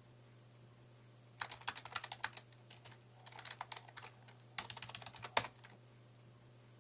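Typing on a backlit gaming keyboard: three quick runs of key clicks with short pauses between them, ending with one louder key stroke.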